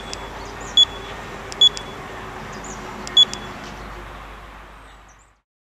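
Hilti PD5 laser distance meter beeping four times: short, high beeps spaced unevenly over about three seconds, over a steady background hum that fades out near the end.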